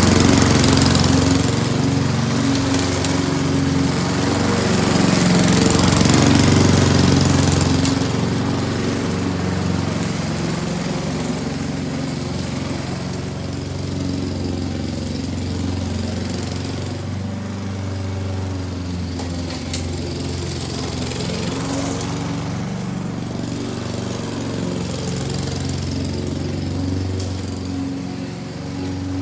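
Walk-behind petrol lawn mower running steadily while cutting grass. It is loudest for the first several seconds while it is close by, then fainter as it moves away.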